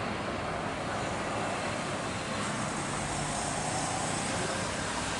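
Steady jet engine noise from a Saudia Boeing 777-300ER landing, passing low along the runway as it flares and touches down; the hiss grows brighter about halfway through.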